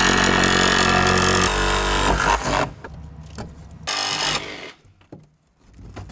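Power tool cutting out a window opening in the bus's wall panel, running steadily with a shift in pitch partway through and stopping about two and a half seconds in, then a short second burst. After it come light knocks and rattles as the cut-out piece is worked loose.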